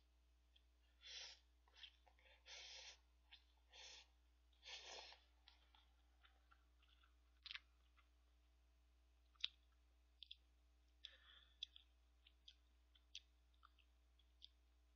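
Quiet eating sounds from a person eating cup ramen-and-rice with chopsticks: a run of short mouth noises in the first few seconds, then scattered small clicks.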